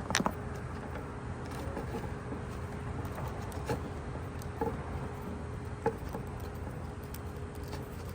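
A few short, sharp clicks and snaps of wire and small hand tools being handled, over a steady low background hum.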